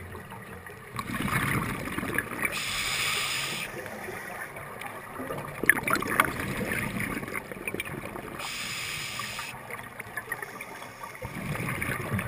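Scuba diver breathing underwater through a regulator: a hissing inhale about three seconds in and again about nine seconds in, each followed by a burst of rumbling exhale bubbles.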